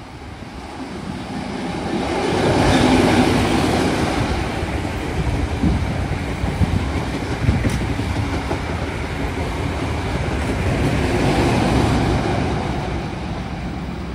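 NSW TrainLink XPT diesel passenger train passing at speed. The leading power car's engine swells and passes about three seconds in, the carriages rumble by with sharp wheel clicks, and the rear power car's engine swells again near the end.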